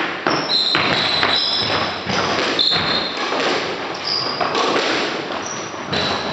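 Quick footfalls and shoe squeaks on a wooden squash court floor: repeated thuds of feet landing, with several short high squeaks as the court shoes grip and turn.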